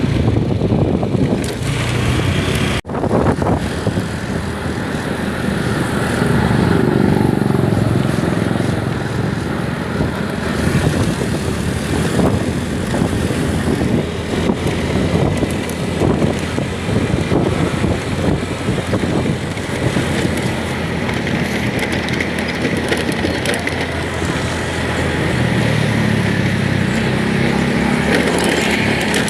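A motor vehicle on the move: steady engine and road noise, with a brief dropout about three seconds in.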